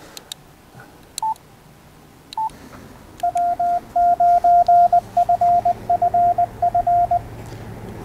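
Two short beeps, then a Yaesu FT-891 transceiver's CW sidetone sending a Morse code message from its memory keyer. The tone is keyed in dots and dashes for about four seconds and spells the call sign W9FFF stored in CW memory 1.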